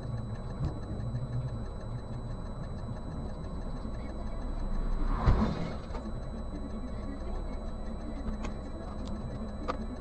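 Steady engine and road rumble of a moving vehicle as picked up by its dashcam, with one louder thump about five seconds in and a few faint clicks near the end.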